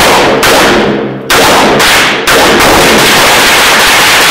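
Handgun shots at a shooting range, several about a second apart, each with a long echoing tail that runs into the next; the recording is overloaded at close range.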